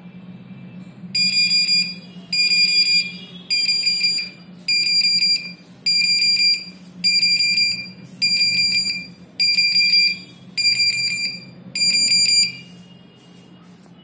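Smoke detector alarm going off during a test: ten high-pitched beeps, one every second or so. It starts about a second in and stops near the end.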